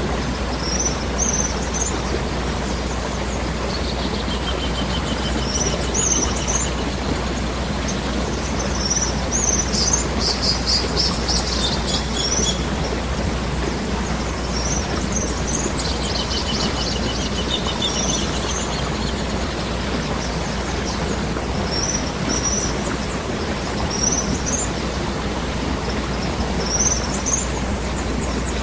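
Waterfall rushing steadily, with small birds chirping every second or two over it and a few quick trills.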